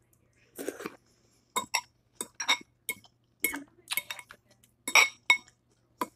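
A metal fork clinking and scraping against a clear glass bowl of collard greens and pot liquor. It makes about a dozen irregular sharp clinks, each with a brief glassy ring.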